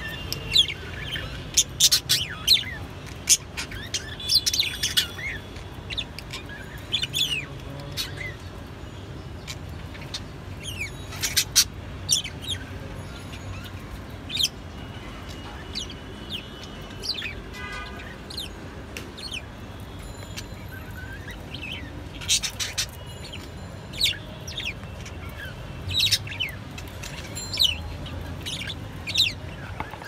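Lovebirds chirping: short, sharp, high-pitched calls in irregular runs, some coming in quick clusters.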